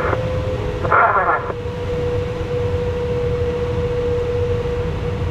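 Steady rush of airflow over a glider's canopy in flight, with a steady high electronic tone. A short burst of voice comes through about a second in.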